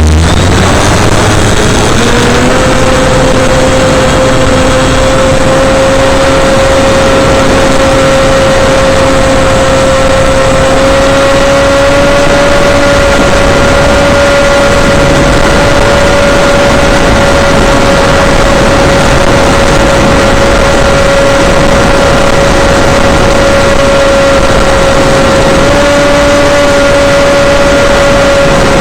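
Onboard sound of an FPV model aircraft's motor and propeller: a loud, steady whine over rushing noise. Its pitch rises over the first couple of seconds as the throttle comes up, then holds.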